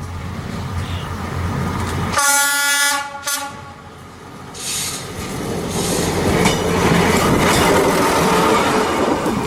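Class 810 diesel railbus sounding its horn for about a second, two seconds in, with a short second toot right after, then rumbling closer across a steel truss bridge and passing close by, loudest near the end.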